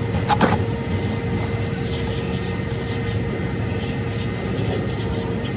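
Steady rumbling background noise with a steady hum, and a short click about half a second in.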